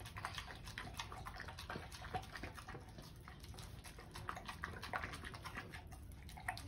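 American bully mother dog eating a wet mix of chopped chicken and rice from a bowl: faint, irregular chewing and smacking clicks.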